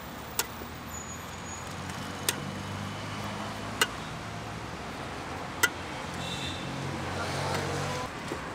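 Street traffic running steadily with a low rumble that swells as vehicles pass. Four short, sharp clinks of steel utensils are spread through it, one to two seconds apart.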